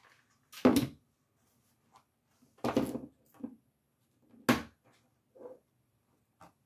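Three solid knocks about two seconds apart, with a few fainter taps between: a hand patting and pressing glued-on hair pieces down against a stretched craft canvas.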